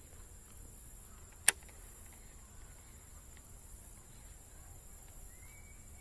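A single sharp click about a second and a half in, over a faint steady high hiss.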